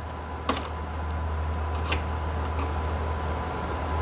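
A few sharp clicks and taps from handling a small cooling fan and its wire connector on a circuit board, two clear ones about a second and a half apart and a fainter one after. Under them runs a steady low hum with a faint high tone.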